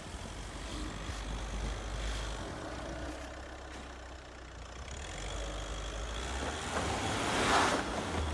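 Volkswagen Amarok pickup's engine running under load as it pushes through deep snow. Near the end a rising rush, the loudest sound, comes as the wheels spin and spray snow.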